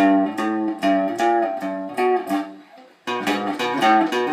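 Strat-style electric guitar playing strummed chords in a steady rhythm, about two to three strokes a second. The playing drops away about two and a half seconds in, then picks up again a moment later.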